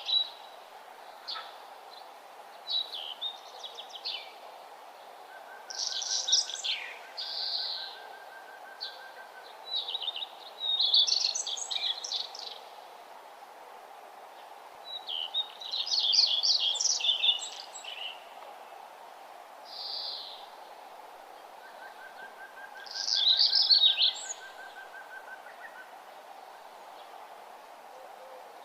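A bird singing short phrases of rapid high chirps and trills every few seconds, over a steady faint background hiss; a fainter, even trill sounds lower down twice behind the song.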